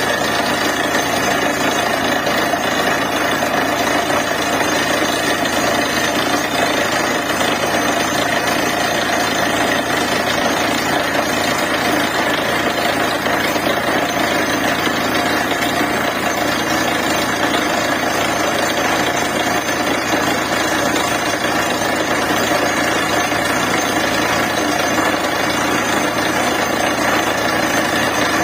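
Borewell drilling machine running steadily at an even level, a dense unbroken machine din with no pauses.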